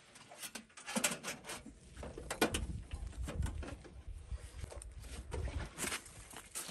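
Irregular clicks and knocks from a portable diesel air heater's housing and fittings as it is handled and picked up, with a low rumble through the middle.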